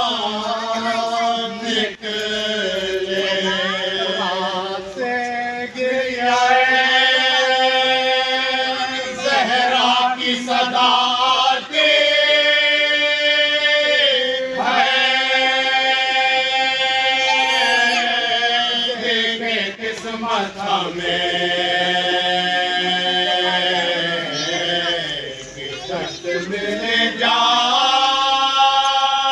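Men's voices reciting a marsia, the Urdu elegy for Imam Hussain, in a slow melodic chant: long notes held for several seconds, gliding slowly up and down.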